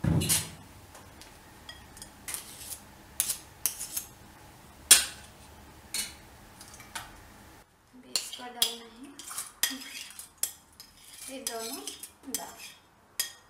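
A metal spoon and a bowl clinking and scraping against a pressure cooker pot as ingredients go in. A loud knock comes at the very start, followed by scattered sharp clicks.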